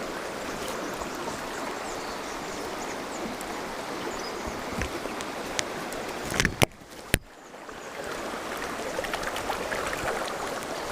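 Mountain stream water rushing steadily. About two-thirds of the way through come two sharp clicks, with the water sound briefly falling away between them before it builds back.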